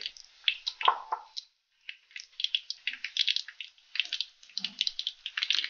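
Oil crackling and sizzling in a clay cooking pot on the stove: a steady scatter of small, irregular pops.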